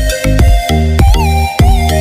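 Electronic background music with a steady beat, about two hits a second, over deep bass notes.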